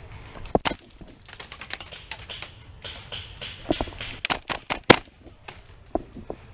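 Gas-blowback airsoft gun, a Tokyo Marui MP7, firing: sharp clacks in several short, irregular bursts, the loudest about five seconds in.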